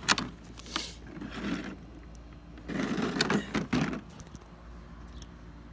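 Handling noise: a few sharp clicks near the start and two short scraping rustles, one about a second in and a longer one around three seconds in, as tools and a handheld phone are moved around the mower.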